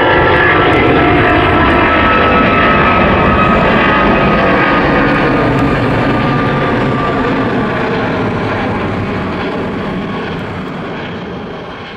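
Boeing 777-200ER's twin Rolls-Royce Trent 800-series turbofans at climb power just after takeoff: a loud jet roar with a high whine that slides slowly down in pitch, fading over the last few seconds as the airliner moves away.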